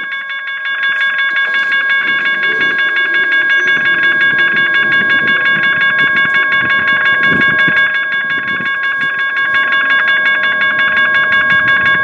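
Railroad grade-crossing bell ringing rapidly and evenly, about three strokes a second, warning of an approaching train. A low rumble from the oncoming train lies underneath.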